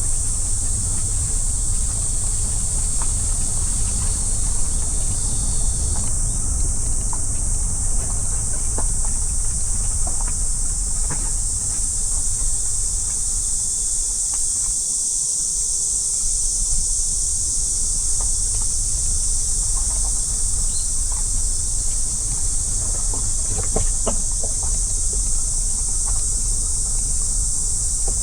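A steady, shrill insect chorus, high in pitch, over the low rumble of wind and road noise from a moving car.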